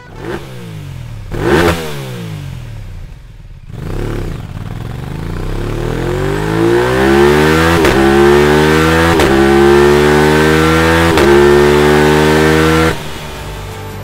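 Aprilia RS660's 659 cc 270-degree parallel-twin engine through an Akrapovic exhaust: two quick throttle blips, then a long rev climbing in pitch and held high with three short breaks in the note, cutting off suddenly near the end.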